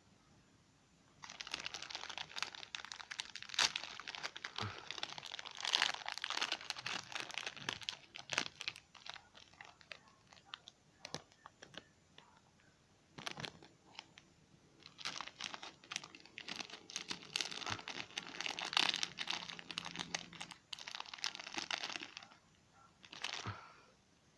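Close-up crinkling and crunching, like a crinkly packet being handled while something crunchy is eaten, in dense crackly runs. It starts about a second in, thins out in the middle, picks up again and stops a couple of seconds before the end, with one short burst just before the end.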